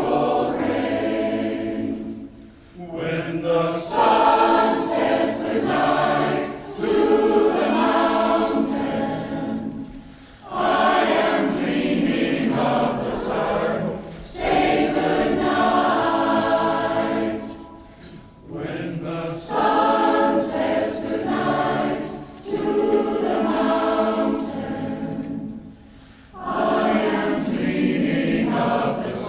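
Mixed community choir singing in harmony, in phrases of a few seconds each with short breaks between them.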